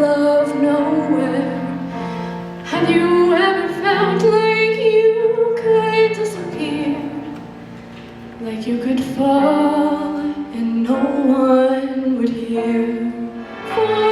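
A woman singing long held notes with vibrato over instrumental accompaniment, with a short quieter gap between phrases midway.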